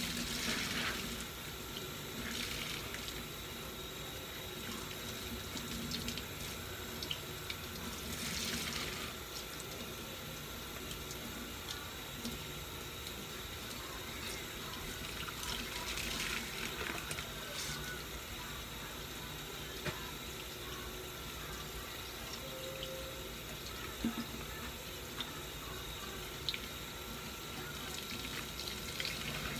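Kitchen tap running into a stainless steel sink while wet, soapy sponges are squeezed and rinsed under the stream. Louder squelching splashes come every several seconds, and a few small knocks sound in the second half.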